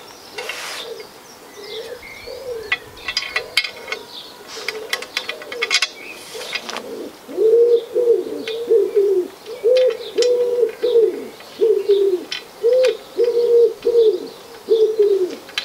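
A pigeon cooing in a regular series of low hoots, faint at first and louder and steadier through the second half. In the first half, light clicks and taps are heard.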